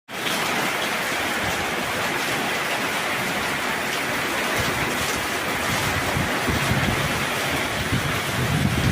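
Heavy rain falling steadily in strong wind, a constant hiss of rain. From about halfway, gusts rumble low and unevenly against the microphone.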